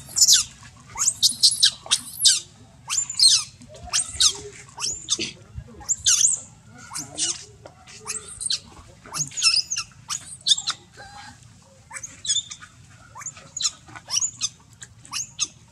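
Infant macaque screaming in a steady run of short, shrill, high-pitched squeals, about two a second.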